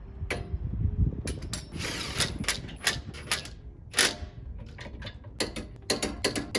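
Metal clicks and clanks of hand tools and lug hardware working on a car wheel hub while a wheel spacer is fitted. There is a short rattling burst about two seconds in, a sharp knock about four seconds in and a quick run of ratchet-like clicks near the end.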